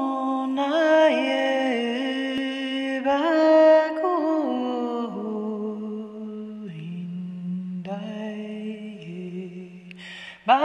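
A woman singing unaccompanied in light language, a chant of wordless syllables: long held notes joined by slides, the melody stepping lower through the phrase. A breath near the end, then the next phrase starts higher.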